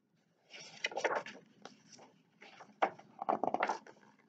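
Pages and cover of a hardcover picture book being handled and turned: several bursts of paper rustling and sliding, with a few light taps.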